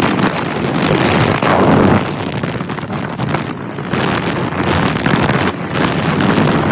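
Wind rushing over the microphone of a motorcycle moving at speed, loud and gusting, swelling and easing every second or so.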